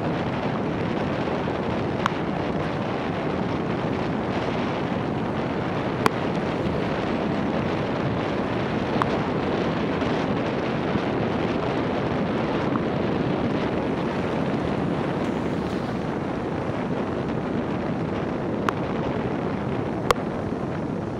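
Steady rushing noise of wind buffeting the microphone of a camera on the roof of a moving car, mixed with tyres on a wet road. A few sharp ticks stand out, about four seconds apart.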